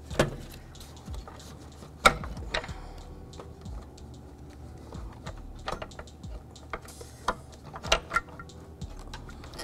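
Scattered light clicks and knocks as an intake manifold is worked back and forth and slid out, catching against its brackets and studs. The sharpest knocks come right at the start and about two seconds in.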